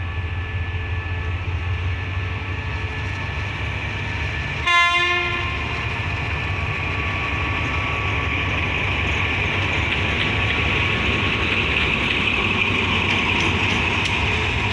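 Diesel locomotives moving slowly through a station yard: a steady low engine rumble, with one short horn blast about five seconds in. Running noise of wheels and engine grows louder in the second half.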